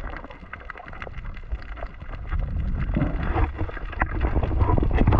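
Underwater sound through a camera housing: a low rumble of moving water with scattered crackling clicks, growing louder in the last two seconds as the swimmer rises towards the surface.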